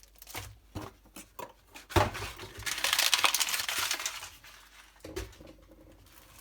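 Paper packing being rustled and crinkled while a parcel is unpacked by hand, loudest for about a second and a half in the middle, with a few light clicks and a sharp knock of items being handled and set down.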